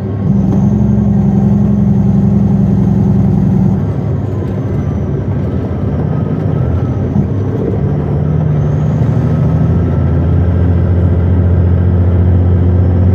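Diesel engine of a loaded Western Star logging truck running steadily, heard from inside the cab; its note drops about four seconds in and settles lower near the end.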